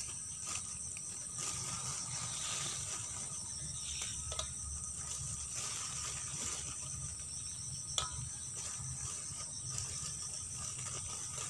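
Steady high-pitched trilling of forest insects, pulsing evenly throughout, with a few light clicks and one sharper click about eight seconds in.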